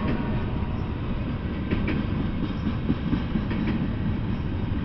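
Double-stack intermodal container freight train rolling past: a steady low rumble of wheels on rails, with two pairs of sharp clicks, about two seconds apart, as the wheels pass.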